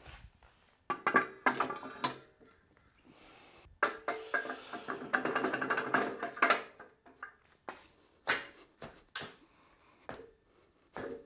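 Heavy steel lift arm clanking and scraping against the lift post's base as it is set onto its pivot, with a run of ringing metal-on-metal sound in the middle and a few single knocks after.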